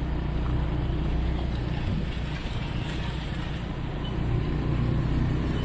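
Motorcycle engine running steadily under way, with steady road and wind noise.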